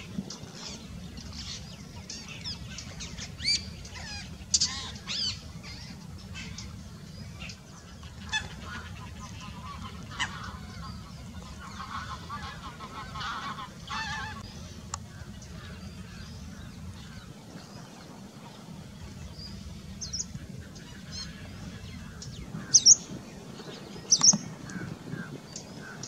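Assorted wild bird calls: many short high chirps, a run of lower pitched calls in the middle, and a few sharp loud calls near the end, over a steady low hum.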